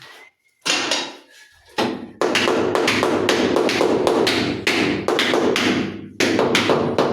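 Rapid repeated tapping and knocking, several strikes a second, in a long run that stops and then comes back briefly near the end.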